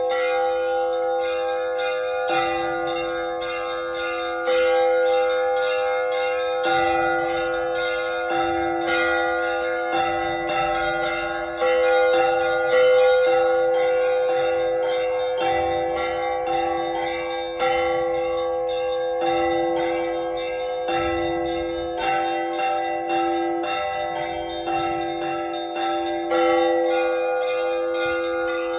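Russian Orthodox church bells rung together in a zvon: quick strokes on the small bells over heavier strokes on larger bells about every two seconds, the bells ringing on between strokes.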